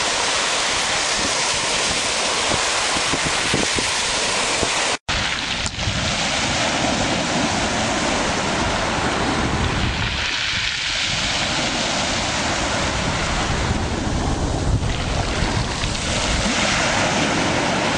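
Sea waves breaking and washing up the shore, with wind buffeting the microphone. The sound cuts out for an instant about five seconds in, then the surf carries on.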